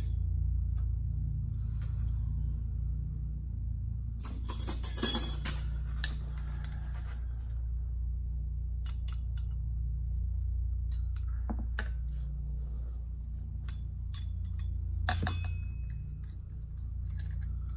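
Clinks and rattles of small metal parts being handled, loudest about four to five seconds in and again around fifteen seconds, over a steady low hum.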